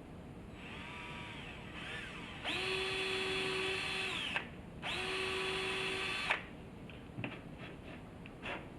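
Power drill driving screws in short runs: a brief softer spin, then two steady, louder runs of about a second and a half each. A few light clicks come near the end.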